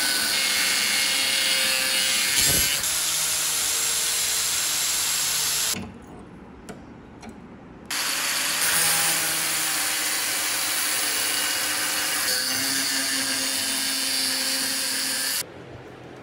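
Angle grinder with a cutting disc running and cutting into a forged steel shuriken blank, the motor tone shifting under load. It stops for about two seconds near the middle, leaving a few clicks, then runs again and stops near the end.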